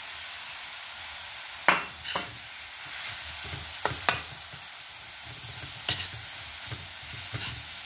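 Shredded cabbage with freshly added ground green masala sizzling steadily in a wok over a high flame. A steel spatula stirs through it, scraping and clinking sharply against the pan about six times.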